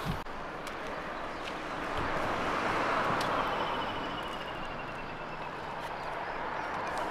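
Road traffic passing: a swell of tyre and engine noise builds and fades around the middle, and another car approaches near the end.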